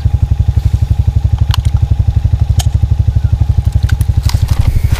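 A low engine or motor running with a rapid, even pulse, with a few sharp clicks over it.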